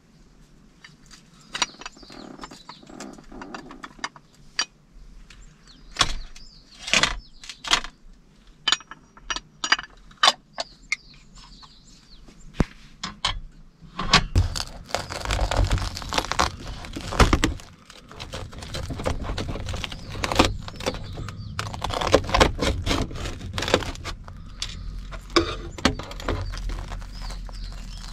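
Metal cooking tools clinking and tapping: tongs knock against a small steel tray and the cookware on a table, with scattered sharp clicks. From about halfway through, a denser crackling and rustling comes in as a crisp toasted sandwich is handled and torn apart.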